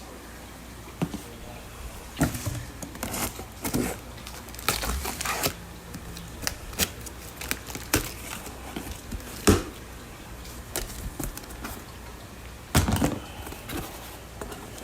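Plastic fish-shipping bags and packing being handled and crinkling, in irregular rustles with scattered sharp clicks and knocks, over a low steady room hum.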